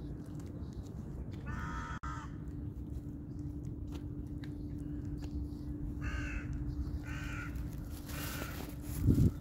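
A crow caws four times, short calls a few seconds apart, over a cat lapping broth with faint wet clicks. A steady low hum runs underneath.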